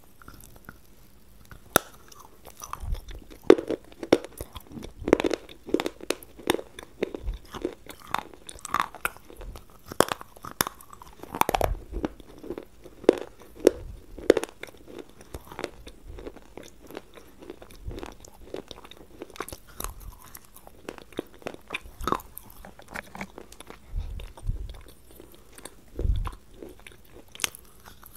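Close-miked biting and chewing of a hard, crunchy food: irregular sharp crunches and crackles, closely packed in the first half, with a short lull in the middle before the crunching picks up again.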